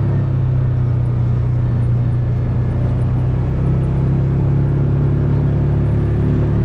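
Engine of an open-top off-road tour vehicle running steadily as it drives, a low steady hum whose pitch dips slightly about a second in and rises again about four seconds in.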